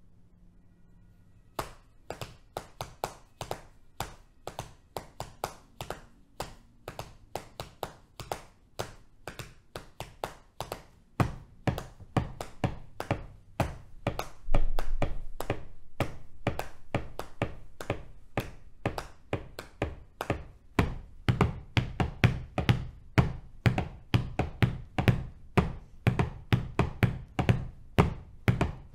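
Hands tapping on the thighs in a five-against-four polyrhythm, starting about a second and a half in after a count-in. The taps come in an uneven, interlocking pattern, with a heavier, deeper layer joining about eleven seconds in and again near twenty-one seconds, and one louder thump about halfway through.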